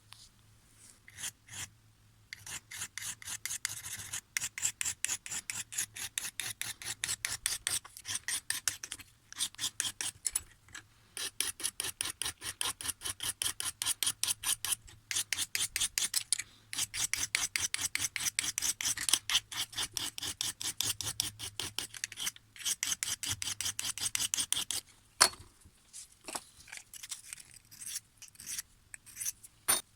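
A secateur blade being sharpened: rapid rasping strokes, about four or five a second, in long runs broken by short pauses, thinning to scattered strokes near the end.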